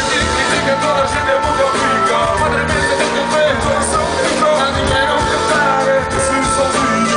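Live rock band playing loudly through a stage PA, with guitar and drums, heard from the audience.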